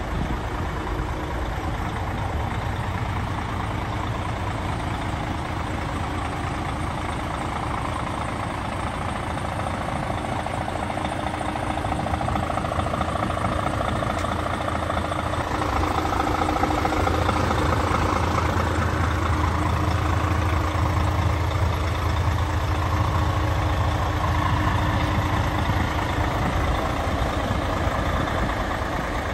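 DAF CF 6x2 tractor unit's diesel engine idling steadily, growing a little louder about halfway through.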